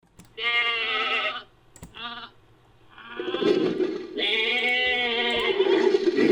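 Goat bleats made into a creature sound effect: one long bleat, a short one, then a long bleat laid over a lower, rough growling layer.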